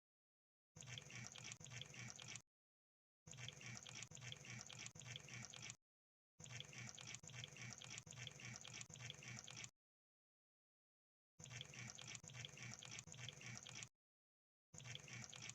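Crab sounds: bursts of rapid crackling clicks, each two to three seconds long, with dead silence between them. Four full bursts, and a fifth starts near the end.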